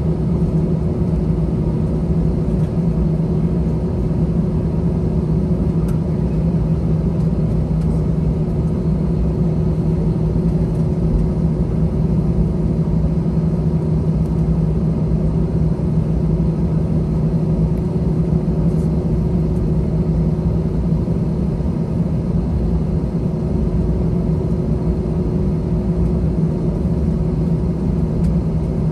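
Cabin noise of an Airbus A321-211 taxiing, its CFM56 engines running: a steady low hum over an even rumble.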